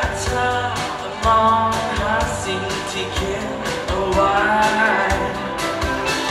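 Live band playing through a festival PA: electric guitars, keyboard and drum kit, with a voice singing.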